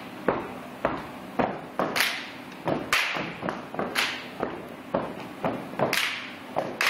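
Step team stepping in unison: a rhythm of foot stomps and hand claps, about two to three beats a second, with the sharpest accents every couple of seconds.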